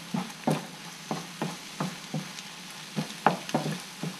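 Eggs and date paste sizzling in a frying pan while a utensil stirs them, scraping and knocking against the pan in repeated, irregular strokes, about three a second.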